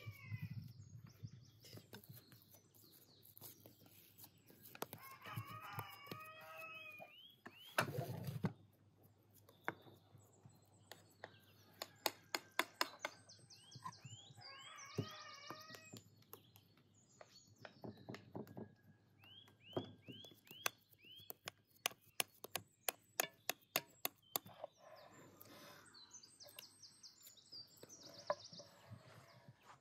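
Chickens and small birds calling, with repeated short chirps. A quick run of light, sharp clicks and taps comes through the middle, and there is a short rush of noise about eight seconds in.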